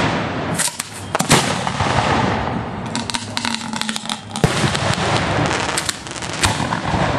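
Fireworks fired at close range from ground mortar racks: a dense run of sharp reports over steady crackling and hiss, with two louder bangs, one early and one in the middle.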